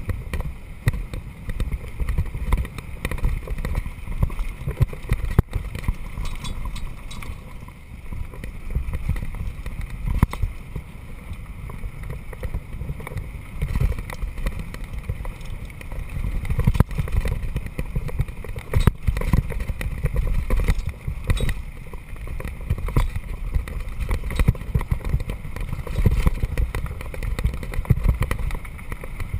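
Wind buffeting the microphone over the rumble of knobby mountain-bike tyres rolling fast on a gravel track, with the bike rattling and clicking over bumps now and then.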